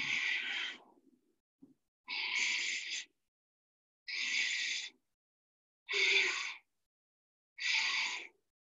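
A person breathing deliberately and audibly: five loud breaths, each under a second, about two seconds apart, taken while holding a yoga inversion counted in breaths.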